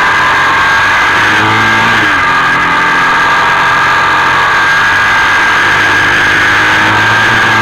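Motorcycle engine running under steady throttle on the move, loud, with a steady high whine and rushing wind noise from the onboard camera; the engine note shifts slightly about two seconds in.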